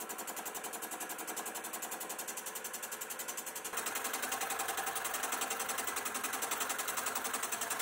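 Fly cutter on a Sieg X2.7L mini mill taking a facing cut across grey cast iron, the spindle running with a rapid, even pulsing. It gets louder about four seconds in.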